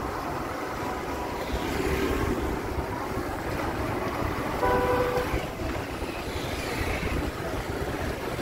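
Busy street traffic: a steady wash of motorbike and autorickshaw engines passing close by. A vehicle horn honks briefly about five seconds in.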